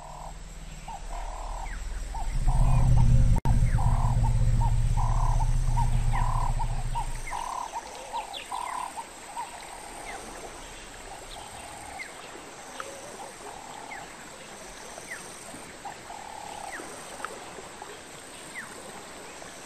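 Frogs calling by the water: a rhythmic croak repeated about one and a half times a second, slowing in the second half, with short high chirps scattered through. A deep low rumble swells up about two seconds in and fades out around seven seconds.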